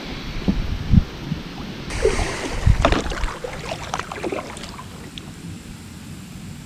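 Kayak on a river: irregular water splashes and small knocks against the hull, with wind rumbling on the microphone.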